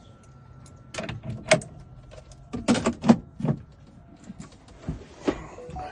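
Sharp clicks and clacks of handling at a key-cutting machine while a Nissan key is cut, the loudest cluster about two and a half to three and a half seconds in, over a faint steady hum that stops about four seconds in.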